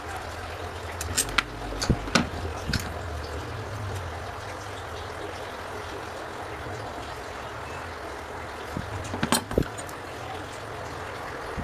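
Water running or trickling steadily, with a few sharp clicks and knocks of hard objects about one to three seconds in and again near the end.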